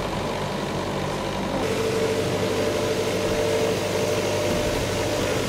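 Steady mechanical drone of a machine running, with a steady humming tone joining about a second and a half in.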